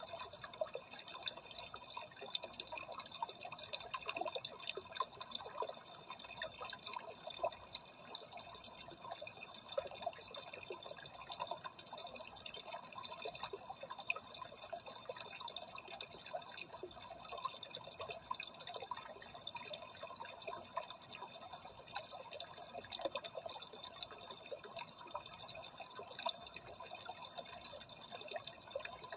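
Freshwater aquarium water trickling and splashing at the surface: a steady, unbroken stream of small drips and bubbles.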